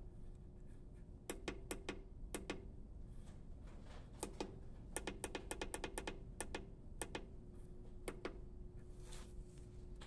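Soft clicks of the push buttons on an electric melting furnace's digital temperature controller. The clicks come singly and in quick runs as the preheat temperature is keyed in, over a faint steady hum.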